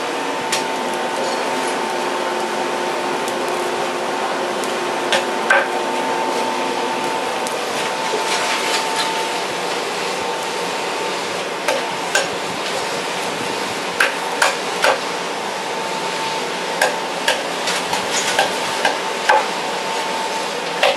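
Forced-air blast running steadily into a bloomery furnace, with a thin steady whistle of air through the pipes. Irregular sharp knocks and clinks of charcoal being split into small chunks sound over it, a few early and many in the second half.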